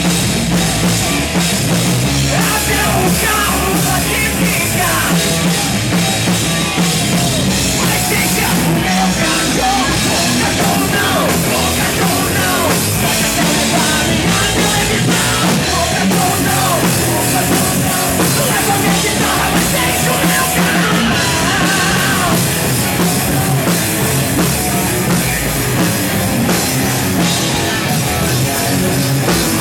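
Hard rock band playing live, with distorted electric guitars, bass and a pounding drum kit running loud and steady.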